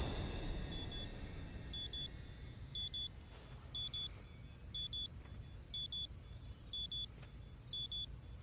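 Digital alarm clock beeping, a high double beep about once a second. A low rumble fades away over the first few seconds.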